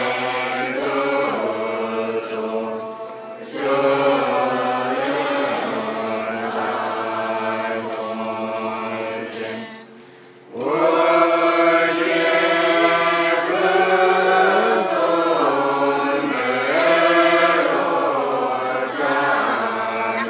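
A group of men and women chanting Buddhist prayers in unison, a sustained, melodic recitation. The chant breaks off briefly a little before halfway through, then resumes.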